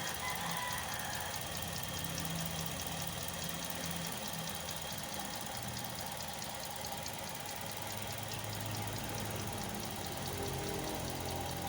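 Toyota Vios 2NZ-FE four-cylinder engine idling steadily.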